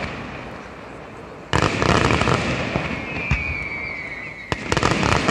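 Aerial fireworks display: a salvo of shells bursts suddenly with dense bangs and crackling about a second and a half in. A thin falling whistle runs through the middle, then a sharp bang and another salvo come near the end.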